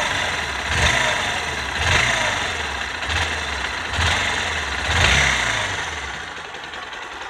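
Bajaj Pulsar NS160 single-cylinder engine running just after its valve tappet clearances were reset, the sound swelling and easing about once a second. Only a little tappet ticking comes from the engine now that the loose rocker tappets have been tightened.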